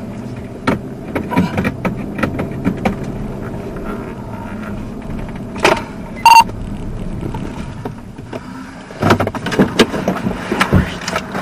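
Patrol car cabin while driving slowly: a steady low engine and road hum with scattered clicks and knocks. A short beep sounds about six seconds in, and a cluster of knocks and rustling comes near the end as the car pulls up.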